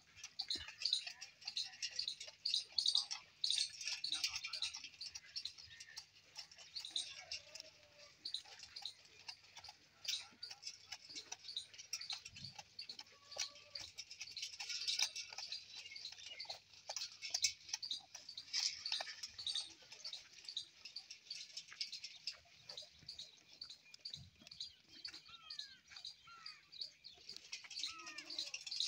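A dense chorus of small birds chirping rapidly and continuously, with a few gliding whistled calls near the end.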